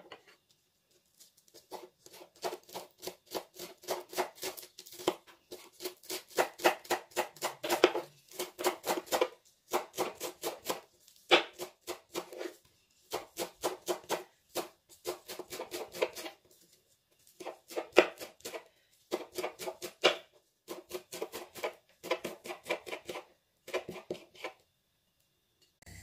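Kitchen knife chopping green onions and dill on a wooden cutting board: quick runs of crisp chops against the board, with short pauses between runs.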